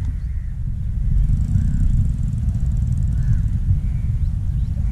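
Wind buffeting the microphone: a steady, loud low rumble that flutters in level. A few faint high chirps sound in the background.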